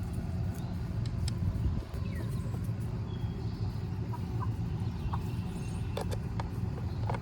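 Chickens clucking in the background over a steady low rumble, with a few short clicks and taps.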